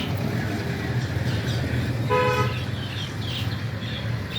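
A vehicle horn gives one short beep about two seconds in, over a steady low traffic hum.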